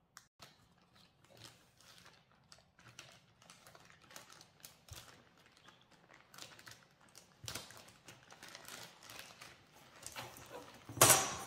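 Clear plastic zip-lock bag crinkling as a hand rummages through the felt-tip pens inside it, the pens clicking against each other in irregular taps, with a louder rustle of the bag near the end.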